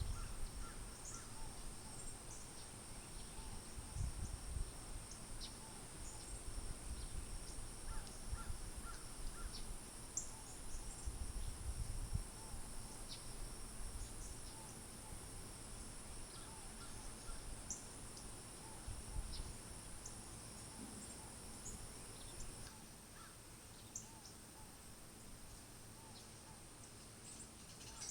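Garden birds chirping with short, scattered calls over a steady high-pitched insect buzz that stops about two-thirds of the way through. Low rumbles of wind on the microphone come and go in the first part.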